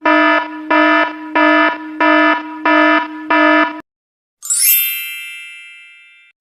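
Electronic buzzer sound effect: six harsh, evenly pulsed buzzes in quick succession, like an alarm. After a brief gap, a bright, high bell-like chime rings out and fades away.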